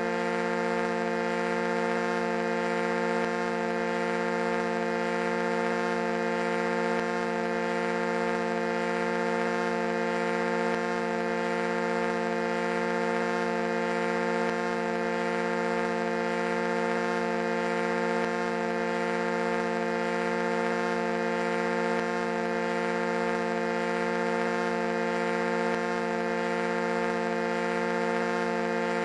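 Foghorn blowing one long, unbroken low blast, its pitch and loudness held steady throughout.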